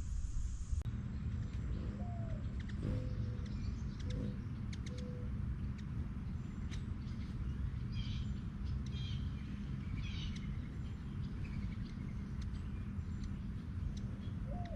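Wild birds calling: a few short whistled notes, then a run of quick higher chirps about midway, over a steady low rumble.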